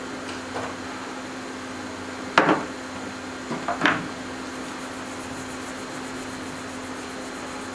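Sharp knocks of tools being handled on an electronics repair bench during eMMC chip reballing: one loud knock about two and a half seconds in, then a quick cluster ending in another loud knock about a second later. Under them runs a steady hum with a low tone.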